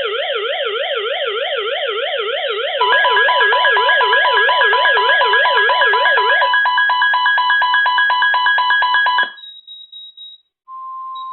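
Two weather radios sounding their severe thunderstorm warning alarms: a fast warbling siren-like alert tone, joined about three seconds in by steady high beeping tones. The alarms cut off about nine seconds in, and near the end a short steady tone sounds.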